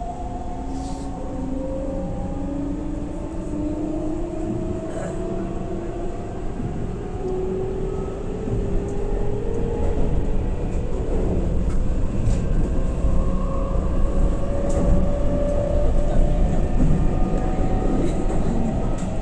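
Keihan 9000 series electric train under way, its traction motors whining in several tones that rise slowly in pitch as it gathers speed, over a steady rumble of wheels on rail. The sound grows louder about halfway through.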